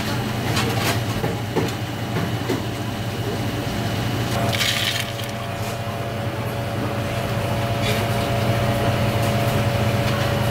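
Steady kitchen background hum with a few scattered light clicks and knocks of utensils, and a short hiss about four and a half seconds in.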